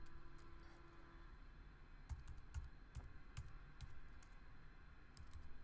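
Typing on a computer keyboard: faint, irregular keystrokes, a few at a time, as a short name is entered.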